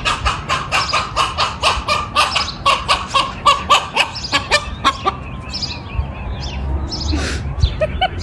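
Chicken squawking in quick repeated calls, about four a second, for the first five seconds or so, then fewer and fainter calls.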